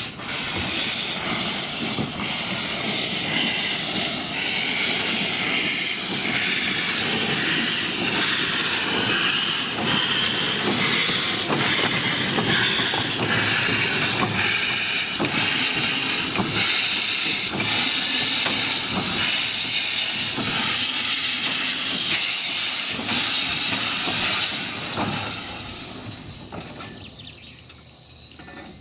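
Small narrow-gauge saddle-tank steam locomotive moving off slowly with its cylinder drain cocks open: a loud, steady hiss of steam, pulsed by the exhaust beats. The hiss fades away near the end.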